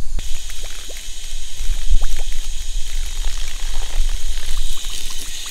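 Water hissing steadily from a garden hose spray nozzle into a glass measuring cup, dissolving amprolium (Corid) powder; the flow starts abruptly just after the beginning.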